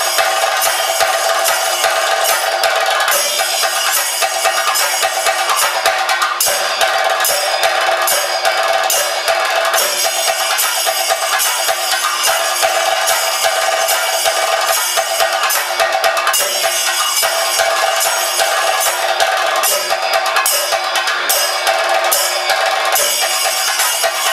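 Chenda drums in a thayambaka ensemble, beaten with sticks in a dense, continuous run of rapid strokes, with ilathalam hand cymbals ringing along.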